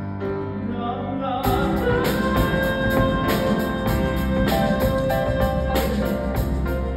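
A young man's solo singing voice in a musical theatre song over accompaniment. About a second and a half in, the accompaniment swells to a fuller, louder sound with regular cymbal strokes under the sung notes.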